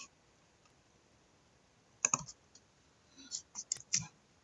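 A few scattered light clicks and taps: a short cluster about two seconds in, then several quieter ones near the end.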